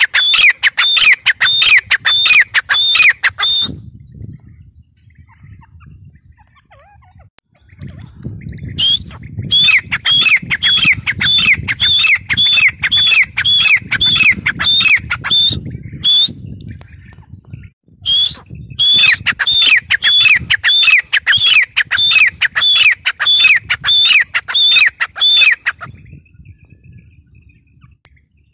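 Grey francolin calling: loud, rapid repeated notes, about two to three a second, in three bouts. The bird falls silent about 4 s in, calls again from about 9 s, pauses briefly near the middle, and stops a couple of seconds before the end. A low rumble runs under the calls.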